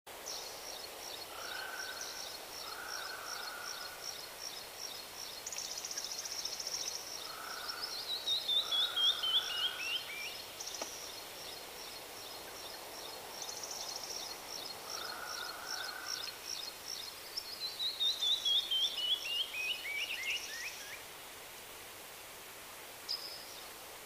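Songbirds singing: fast strings of high, thin notes, twice breaking into a run of notes that falls in pitch, over a steady background hiss. The song stops about three seconds before the end, leaving the hiss and one short chirp.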